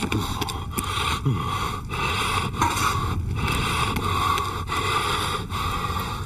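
Quick, rasping breaths through a snorkel, each breath a short burst of noise with brief pauses between.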